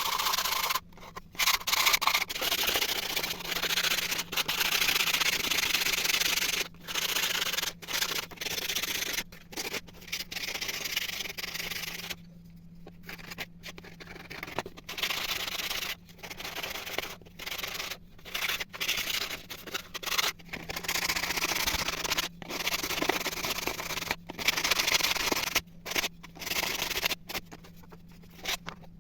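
Hand sanding with sandpaper: rasping back-and-forth rubbing that comes in runs broken by frequent short pauses, quieter for a stretch in the middle.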